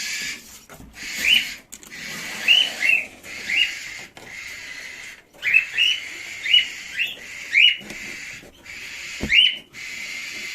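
A bird chirping over and over, about a chirp a second and sometimes two close together, each chirp short and rising in pitch, over a steady hiss. A single low knock comes near the end.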